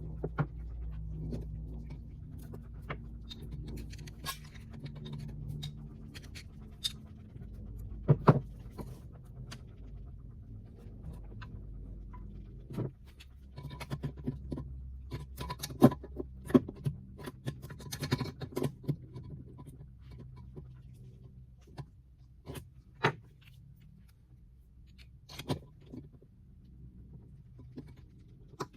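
Scattered clicks and clinks of small hard objects being handled, irregular and sharpest about a third of the way in and again past the middle, over a low steady hum.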